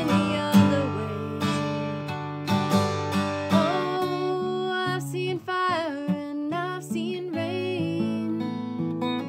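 An Alvarez steel-string acoustic guitar strummed in a steady rhythm while a woman sings along, her voice clearest in the second half.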